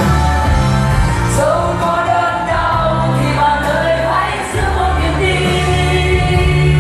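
Music: a song with singing over sustained bass notes.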